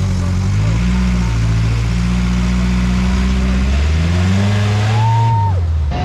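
Modified off-road 4x4 truck's engine revving under load as it climbs, its pitch rising and holding high, rising again, then dropping off near the end.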